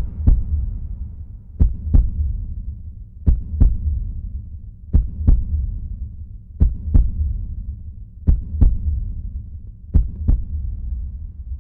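Heartbeat sound effect: a slow double thump, seven beats evenly spaced about every second and two-thirds, over a low steady hum.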